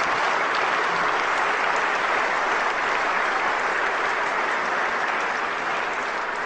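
Large audience applauding, a steady dense clapping that begins to taper off near the end.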